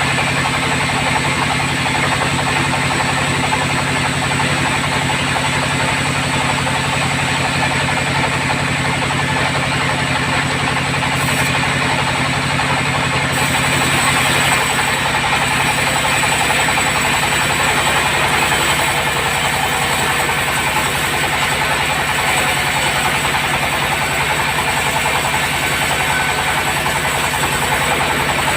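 Sawmill bandsaw running steadily: a loud mechanical drone with a low motor hum under a dense whirr of the blade and machine. About halfway through, the low hum changes pitch.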